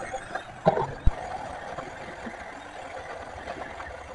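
Battery chainsaw running steadily as its chain cuts into the base of a tree trunk, a steady electric whir with one brief louder burst a little under a second in.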